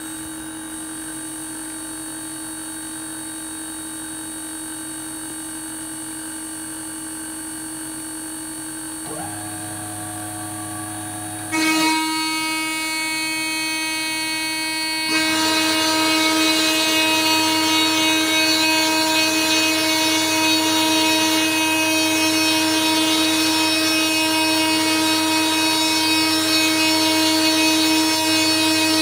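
CNC router spindle running with a steady whine while a small end mill mills an inlay pocket into a handle blank. The sound gets louder about twelve seconds in, and again a few seconds later as a rougher cutting noise joins the whine.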